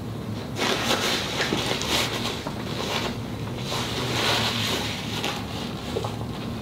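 Paper napkin rustling and rubbing as it is handled and wiped across the mouth, in several swells of noise, over a steady low hum.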